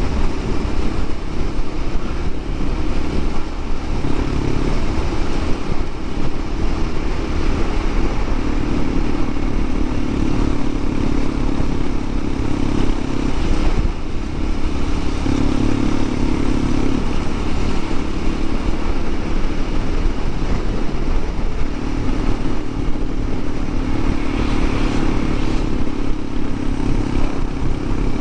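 Honda CT125 Hunter Cub's single-cylinder four-stroke engine running steadily under way, its note swelling and easing a few times with the throttle, over a constant rush of wind and road noise.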